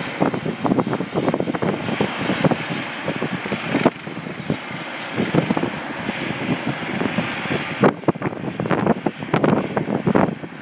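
Gusty wind buffeting the microphone in irregular thumps, over a steady rushing noise from a hospital helicopter on its rooftop helipad.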